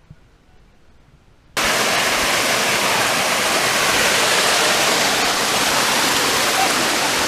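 Waterfall rushing: a loud, steady wash of falling water that cuts in suddenly about a second and a half in, after a quiet start.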